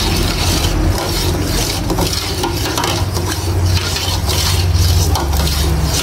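A utensil stirring golden tapioca pearls in a stainless steel pot of boiling water, with repeated scraping and swishing strokes, over a steady low hum.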